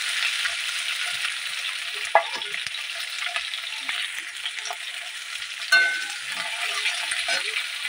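Onion and green capsicum pieces sizzling in hot oil in a metal kadhai, stirred with a metal spatula that scrapes and clinks against the pan, sharpest about two seconds in and again near six seconds in.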